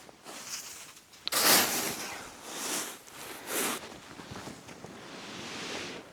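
A few short rustling or crunching noises, the loudest about a second and a half in after a sharp click, then a softer, longer rustle near the end.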